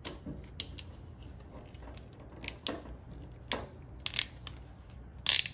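Bundled automotive wires being handled and pulled by hand: scattered short rustles and clicks of the insulation brushing together, about a dozen at uneven spacing, the loudest a brief cluster near the end.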